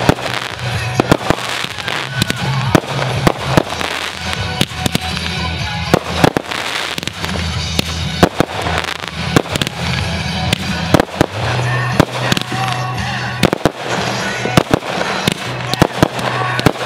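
Aerial firework shells bursting in quick succession: many sharp bangs, one or two a second at irregular intervals, with crackle between them. A steady low background of music runs underneath.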